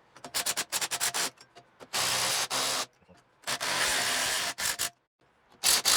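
Hand-tool work on a motorcycle rear shock spring: a quick run of sharp clicks, then two rough, scraping noises of about a second each, with more clicks near the end.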